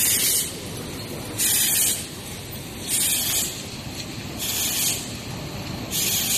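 Ampoule production line machinery running with a steady low noise, broken by short bursts of compressed-air hiss, about half a second each, repeating evenly about every one and a half seconds, five times.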